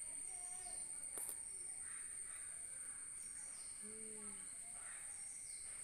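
A steady high insect drone, with a cat's low, drawn-out yowl about four seconds in, the threat call of two cats in a standoff; a sharp click sounds a little after one second.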